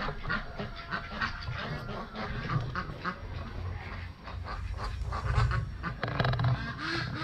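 Ducks quacking, many short calls one after another.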